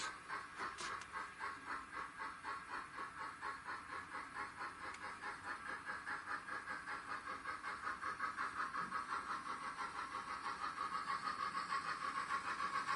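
Sound decoder of a Dapol Hawthorn Leslie model steam locomotive playing steady exhaust chuffs, about three a second, through the model's small speaker, a little louder near the end.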